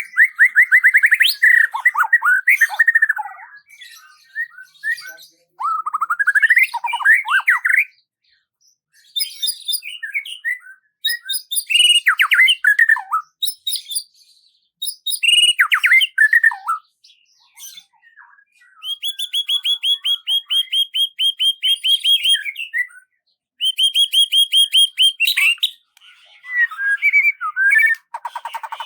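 Songbirds singing in separate phrases of chirps and whistled notes with short pauses between them, including a long fast trill of repeated notes about two-thirds of the way through.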